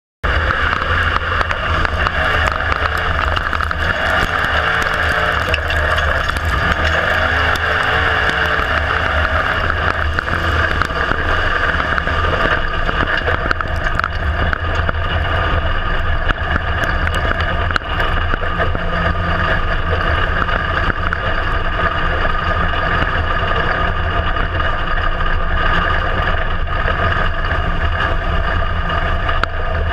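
IMCA Modified race car's V8 engine running at a fairly steady pitch, heard from inside the cockpit with a deep rumble underneath. There are no big revs or lifts, only slight wavering in pitch.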